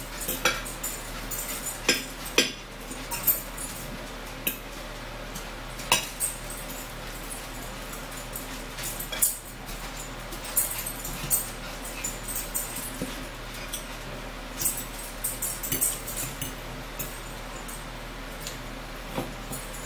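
Close-up eating sounds: irregular lip smacks and chewing ticks, with now and then a light clink of a fork on a plate.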